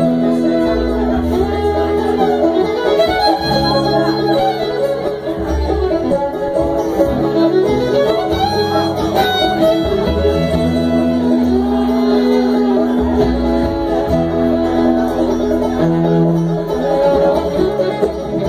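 Bluegrass band playing live, the fiddle carrying long held notes over banjo and guitar picking and a walking upright bass line.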